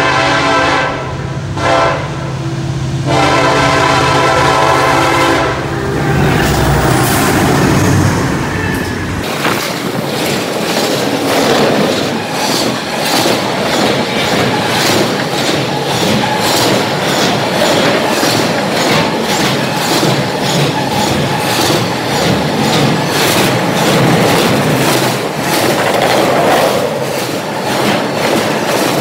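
Diesel freight locomotive's air horn blowing as it approaches, ending about six seconds in, followed by the locomotive's engine passing close by. Then a double-stack intermodal container train rolls past with a steady rumble and repeated clickety-clack of wheels over the rail joints.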